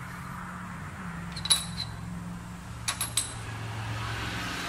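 Steel parts clinking against a steel machine vise: one short ringing metallic clink about a second and a half in, and two more close together around three seconds in, over a steady low hum.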